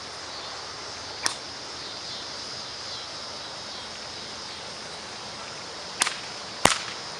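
Whip cracks: a light snap about a second in, then two sharp cracks about half a second apart near the end, the second the loudest, over a steady background hiss.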